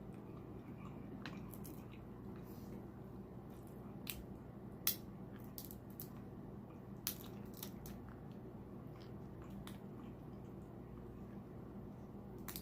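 Eating king crab legs: a few short, sharp cracks and clicks of shell being broken and picked apart, the loudest about five seconds in, with softer squishy eating sounds between, over a steady low hum.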